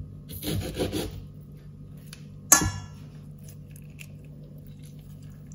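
A knife cutting through a lemon in a short rasping stroke, then a single sharp clink with a short ring about two and a half seconds in.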